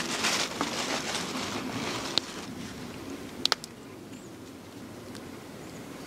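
Plastic bag rustling as a hand rummages in it for a tomato, dying away after about two seconds. Then one sharp click and, a second later, a quick double click, before a faint steady outdoor background.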